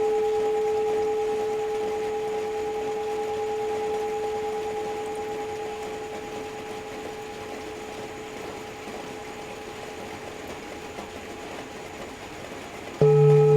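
Tibetan singing bowl ringing with one steady tone and its overtones, slowly fading over a rain hiss. Near the end a louder, deeper bowl tone starts suddenly.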